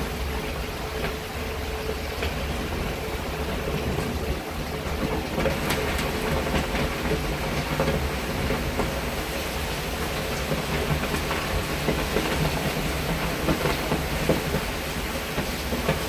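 Steady rain falling: a dense hiss with many small drip ticks scattered through it, over a constant low rumble.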